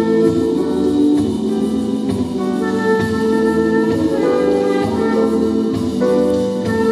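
Instrumental passage of a live band performance, with several instruments holding sustained notes that change every second or so and no singing.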